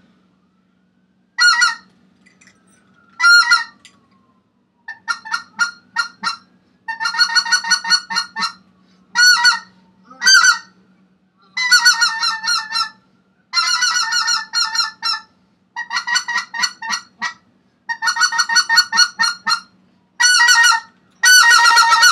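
Greater white-fronted goose ('speck') calling: about a dozen bursts of rapid, high-pitched yelping notes, each burst a second or so long, with short gaps between. A steady low hum runs underneath.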